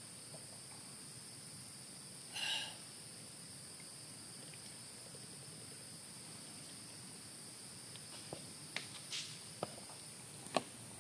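Forest insects keep up a steady high-pitched drone. A brief louder sound comes about two and a half seconds in. Near the end there are a series of sharp clicks and crackles from a plastic water bottle being handled.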